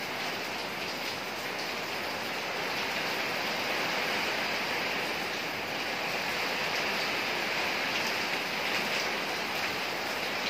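Rain falling steadily, an even hiss of water with no break.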